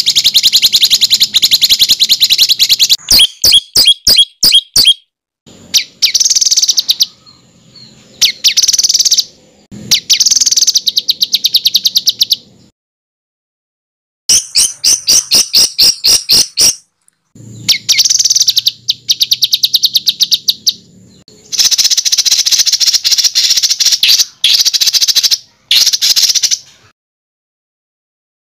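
Songbird giving harsh, rapid-fire 'tembakan' song, the kind used as a masteran recording to tutor competition birds: fast runs of sharp repeated notes in bursts, broken by brief silences.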